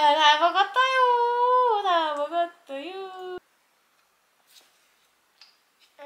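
A high-pitched voice humming or vocalizing without words in a sing-song, with long gliding notes, then cutting off suddenly about three and a half seconds in. The rest is near silence with a few faint clicks.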